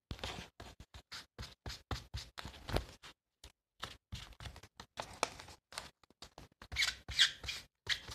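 Scissors cutting paper: many short, irregular snips and scratches, with a louder rustle of paper about seven seconds in.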